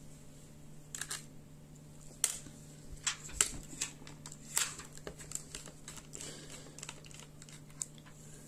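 Irregular sharp clicks and taps of a Phillips screwdriver working small screws out of a Dell Latitude E7240 laptop's base, about a dozen in all, the loudest about two and three and a half seconds in.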